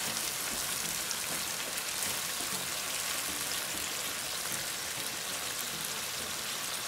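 Sauce of peppers and onions sizzling and bubbling steadily in a hot frying pan, just thinned with a little water and stirred with a wooden spoon, with a fine crackle throughout.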